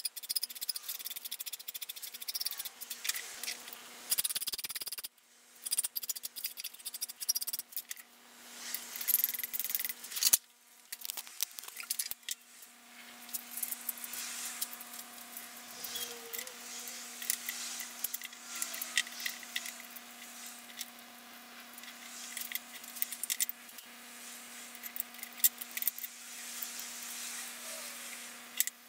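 Hand tool and handling sounds at a workbench: a metal file rasping in quick strokes on a steel bolt, then wooden arm pieces, bolts and washers clicking and rattling as they are fitted together, over a faint steady hum. The sound stops and restarts abruptly several times.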